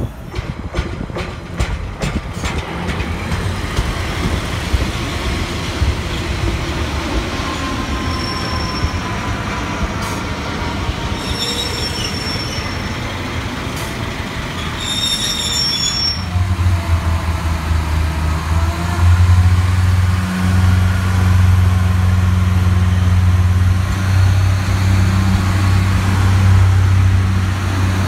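Class 142 Pacer diesel multiple units on the move. Wheels click over rail joints at first, then come several short, high wheel squeals. From about halfway a loud, steady, low drone of the underfloor diesel engines takes over as a Pacer pulls away under power.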